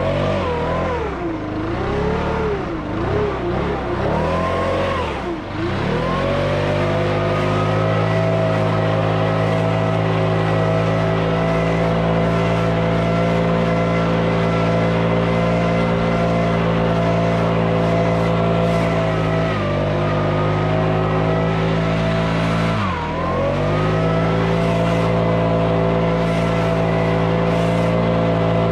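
Stihl BR600 backpack leaf blower's 64.8cc 4-MIX engine running. The throttle is worked up and down for the first few seconds, then the engine is held steady at high revs, with two brief dips in engine speed in the second half.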